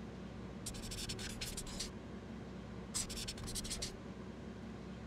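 A pen writing on a surface: two bursts of quick scratchy strokes, each about a second long, with a pause between them.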